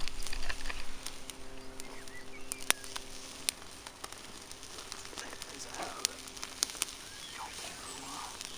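Charcoal fire and meat on a wire grill: scattered sharp pops and crackles over a soft hiss.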